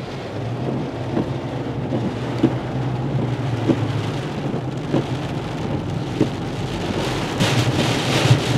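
Heavy rain drumming on a moving car, heard from inside the cabin over a steady low engine and road drone. A light knock repeats about every second and a quarter. The rain grows louder near the end.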